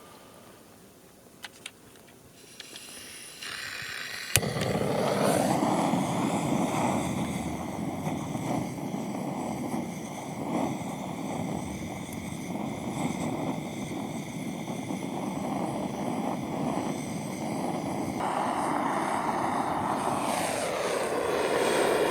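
A steady roaring hiss with faint whistling tones that starts abruptly with a sharp click about four seconds in, preceded by a softer hiss, and holds steady until it cuts off suddenly at the end.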